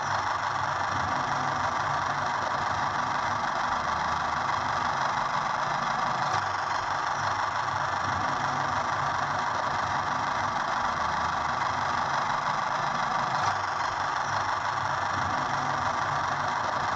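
Small tractor engine running steadily at idle, with a low, even chugging beat under a constant mechanical hum.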